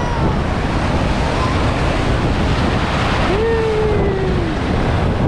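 Ocean surf churning steadily, with wind rumbling on the microphone; a single drawn-out call rises above it about three seconds in.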